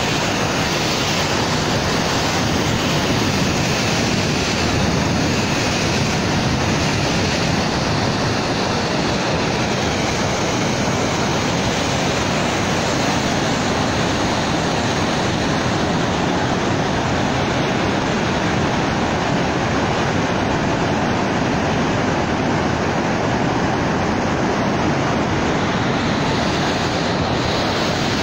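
Floodwater released through a dam's open gates, rushing and churning below the spillway in a loud, steady roar of water.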